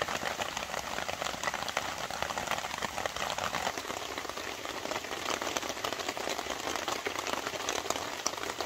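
Heavy thunderstorm rain falling steadily, a dense, even hiss of countless drops.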